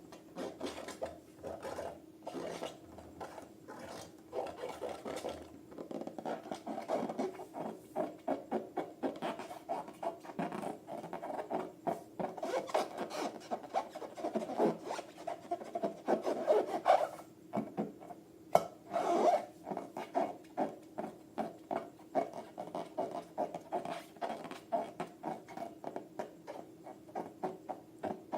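Quick, repeated rubbing and scratching strokes from hands working balloons and slime, growing denser as it goes on, over a steady faint hum.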